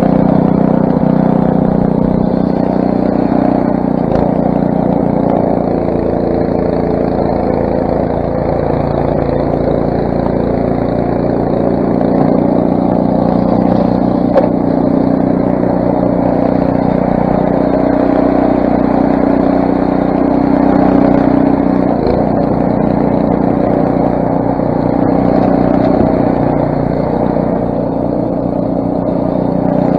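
Craftsman snowblower's 6 hp Briggs & Stratton single-cylinder engine running steadily under load while clearing snow.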